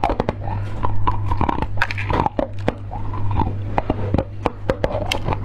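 Close-miked eating: a person biting into and chewing a powder-coated candy ball on a stick, with many sharp clicks and wet mouth sounds.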